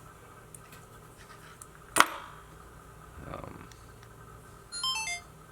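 A single sharp click about two seconds in, then near the end a short electronic chime of several quick tones stepping downward, from the DJI Osmo Action action camera.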